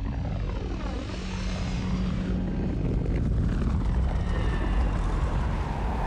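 Airbus A320 airliner flying low past with its engines damaged by a bird strike: a steady jet rumble with whining tones that sweep down and back up about a second in as it passes.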